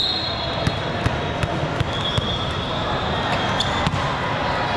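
Volleyball play in a gym: scattered sharp hits and thumps of the ball and players over a steady murmur of voices.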